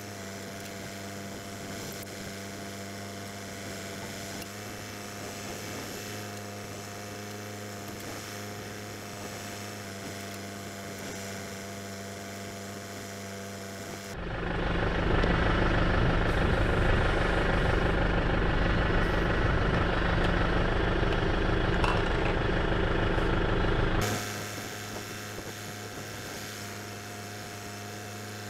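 Tractor engine idling steadily with an even hum. For about ten seconds in the middle a much louder, rough rushing noise cuts in and then stops abruptly.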